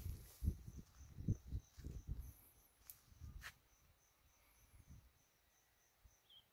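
An insect chirping in an even, high-pitched pulse, about three chirps a second, with footsteps on a dirt path for the first three seconds or so before they stop.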